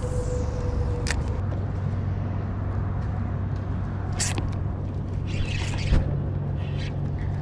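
Boat's electric trolling motor running with a steady low hum, with a few short clicks from the spinning rod and reel and a single knock about six seconds in.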